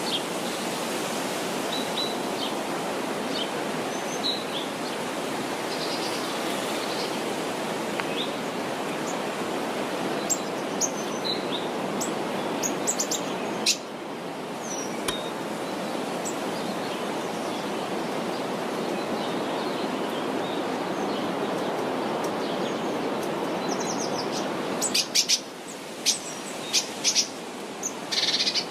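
Small birds chirping in short, scattered high calls, with a quick run of chirps near the end. Under them is a steady outdoor rushing noise.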